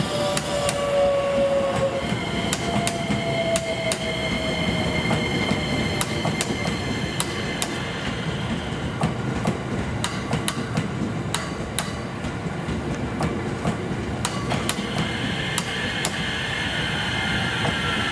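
JR West 227 series 500 'Urara' electric train, six cars, rolling slowly past: a steady rumble of wheels on rail with irregular sharp clicks over rail joints and points. Over it run the thin whine tones of the traction motors and inverter, falling slightly in pitch soon after the start and again near the end.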